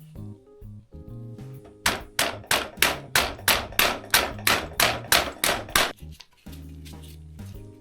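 A hammer striking a bicycle part in about fourteen quick, even blows, roughly three a second, over steady background music.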